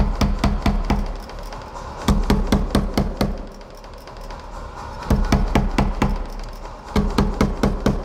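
Power hammer pounding a red-hot steel bar in quick runs of blows, about five a second, with short pauses between the runs.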